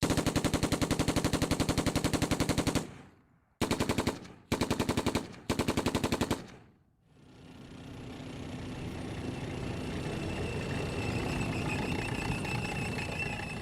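Automatic gunfire: a long rapid burst of about ten shots a second, then three short bursts. After that a rumble swells up with a steady high whine on top and begins to fade near the end.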